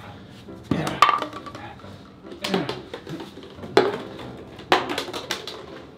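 Empty plastic bottles being knocked over and clattering on the floor: about four separate knocks, roughly a second apart.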